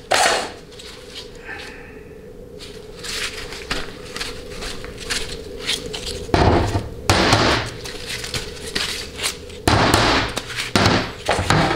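A 700R4 transmission valve body being handled and turned over on a steel workbench: scattered metal clunks and scrapes, with two longer rubbing noises about six and ten seconds in. A steady low hum runs underneath.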